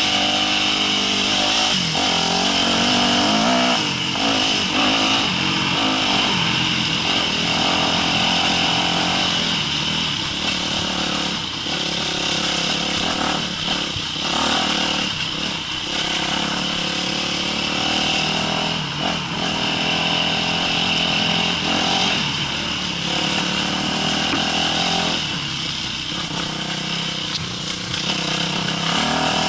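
Yamaha YZ250F dirt bike's single-cylinder four-stroke engine running under load on a rough trail, its pitch rising and falling as the throttle is worked over the bumps.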